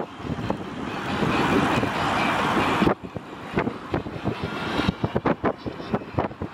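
Wind rushing and buffeting over the microphone of a moving canopy-covered recumbent trike: a steady, loud rush that cuts off sharply a little before halfway, followed by uneven gusty thumps.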